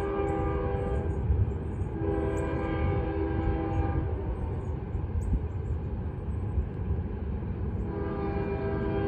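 Diesel freight locomotive's multi-note air horn blowing in separate blasts over a steady low rumble. One blast ends about a second in, a second blast lasts about two seconds, and a long blast starts near the end.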